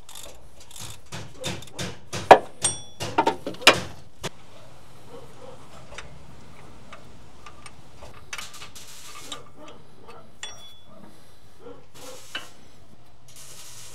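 Metal hand tools working on the drive-belt tensioner's mounting bolts: a quick run of metallic clicks and clanks, the loudest a sharp knock about two seconds in, some ringing briefly. Then scattered light ticks and two short rattles.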